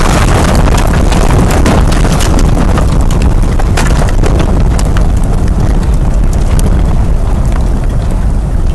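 Strong wind buffeting the microphone, a heavy low rumble, with many scattered sharp cracks and knocks.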